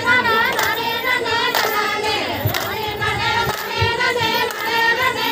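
Women singing a Tamil kummi folk song together, with hand claps marking the beat of the dance at intervals.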